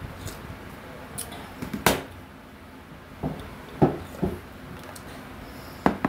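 A person eating with a metal spoon. There is a sharp clink about two seconds in, then a few short, softer knocks or mouth sounds, and another one near the end.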